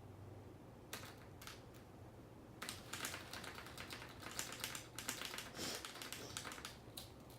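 Quick runs of light clicks and rustles, densest in the middle, from a cat playing with a feathered bird toy.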